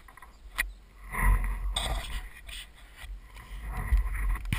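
Wind gusting on the camera microphone as a low rumble that rises and falls twice, with two sharp clicks, one under a second in and one near the end.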